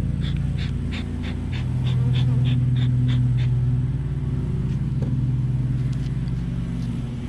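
Rapid rhythmic panting, about four breaths a second, over a steady low hum; the panting fades out about halfway through.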